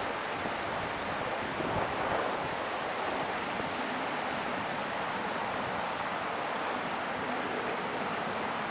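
Fountain-type geyser spouting, a steady splashing hiss of water and steam, with a brief gust of wind on the microphone about two seconds in.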